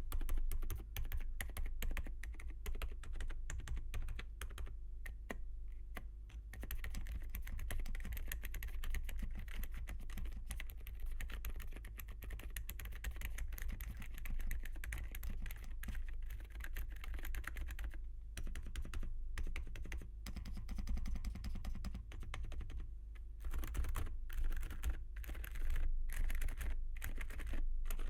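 Typing on a Gamakay TK75 V2 mechanical keyboard with Gamakay Phoenix V2 silent linear switches, a polycarbonate plate and PBT keycaps: a steady run of soft, muted keystrokes, with a few short pauses and slower separate key presses near the end.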